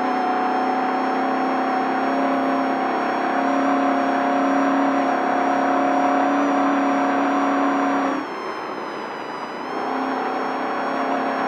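Off-road race vehicle's engine running at steady high revs. About 8 seconds in it drops off and goes quieter for about a second and a half as the throttle lifts, then comes back on.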